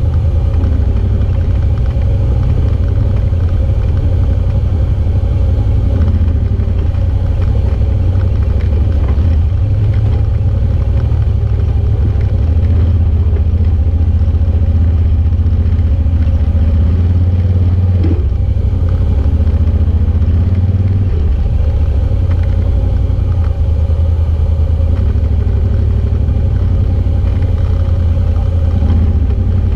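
Side-by-side UTV engine running with a steady low drone as it crawls along a rocky creek-bed trail.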